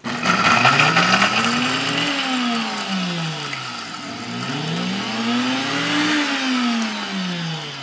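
Countertop blender pulsed twice, its motor speeding up and winding down each time, grinding pork rinds (chicharrones) into a fine powder. The rattling of the pieces is loudest at the first pulse.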